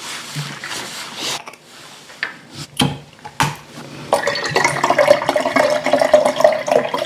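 Liquid poured from a bottle into a glass pitcher of ice: a steady gurgling pour that begins about four seconds in and keeps going, with two sharp clicks shortly before it.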